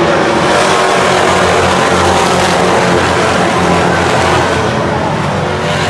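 A pack of stock race cars racing past together on a short oval track, many engines running hard at once in a loud, steady, dense sound.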